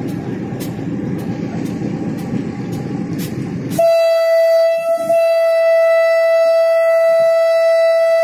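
Rumble of a moving Pakistan Railways RGE-20 locomotive heard in its cab, with light regular ticks. About four seconds in, the locomotive's horn sounds one long, loud, steady blast that lasts past the end.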